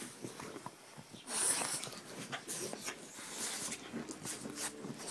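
French bulldogs breathing and snuffling close to the microphone, with a loud rush of breath about a second and a half in and short sounds of breath after it.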